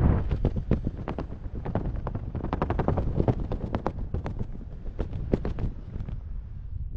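Wind buffeting a helmet camera's microphone during a parachute descent under an open canopy, with an irregular run of sharp crackling pops and flaps. The wind noise and crackling die down near the end.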